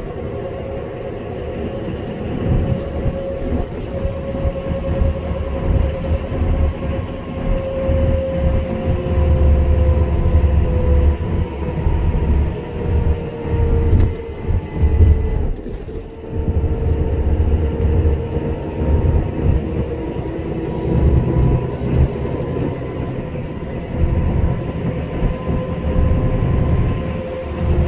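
Road noise inside a vehicle cruising on an expressway: a steady low rumble of tyres on the road, with a whine that slowly drifts in pitch.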